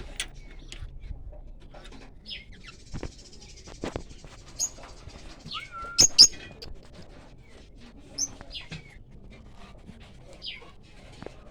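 Cage birds, pet parrots among them, chirping and calling: many short, high chirps and a stretch of buzzy chatter, with two sharp, loud squawks about halfway through.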